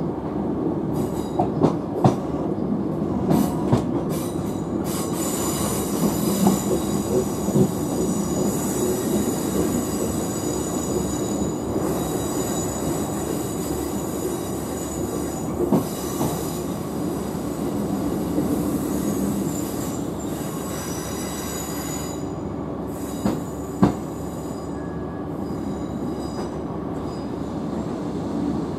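Class 150 Sprinter diesel multiple unit running, heard from inside the carriage: its wheels squeal on a curve in a set of high steady tones from about five seconds in until about twenty-two seconds in, over the steady rumble of the train. A few sharp knocks come through, two close together near the end.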